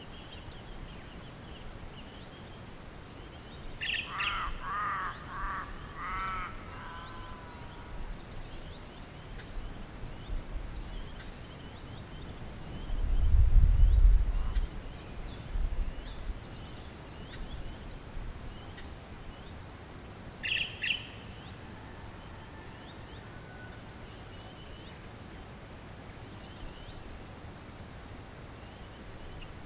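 Bush birdsong: small birds twitter high and almost without pause, and about four seconds in a larger bird gives a run of about five loud, downward-arching calls. A little after the middle, a low rumble of wind on the microphone is the loudest sound.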